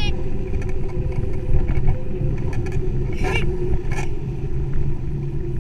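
Steady low rumble of wind and riding noise on the microphone of a camera mounted on a moving bicycle.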